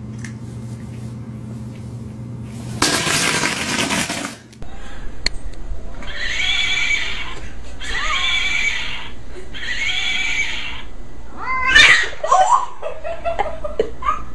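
A cat yowling: three long drawn-out calls in a row, after a short loud noisy burst, with a rising cry near the end.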